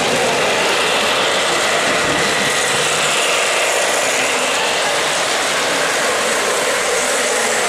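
O-gauge model train cars rolling past close by: a steady whirring rumble of motor, gears and wheels on the three-rail track.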